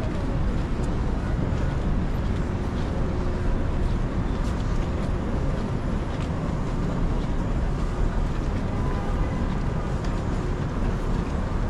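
Busy city street ambience: a steady low rumble of traffic, with a few faint clicks.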